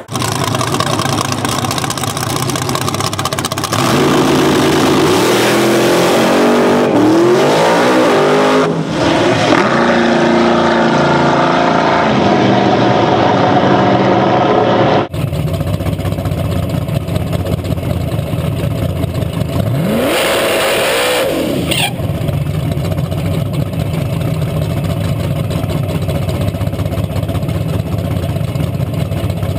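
Drag car engine at full throttle, its pitch climbing and dropping back again and again as it accelerates through the gears. After an abrupt change, an engine runs steadily, heard from underneath the car, with one quick rev up and back down.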